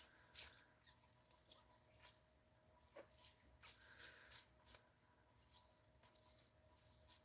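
Faint, scattered clicks and rustles of rigid plastic card holders (toploaders) being flipped through in a hand-held stack.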